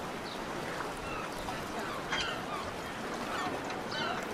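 Water birds giving short, squawking calls, several a second, over a steady background murmur: a harbour-market soundscape.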